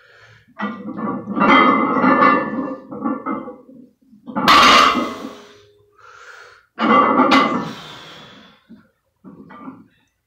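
A weightlifter grunting and breathing hard in strained bursts through heavy deadlift reps, with two sharp knocks about four and a half and seven seconds in.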